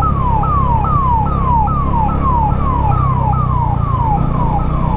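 Ambulance siren in a fast yelp: a tone sweeping down in pitch over and over, about two and a half sweeps a second, over a steady low rumble.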